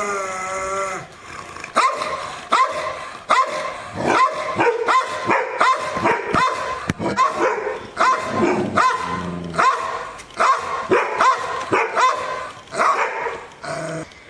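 A dog barking over and over in sharp, separate barks, about one or two a second, after a short wavering whine at the start.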